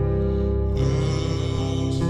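Slowed-down song playing: long held chords, with a brighter, fuller layer coming in just under a second in.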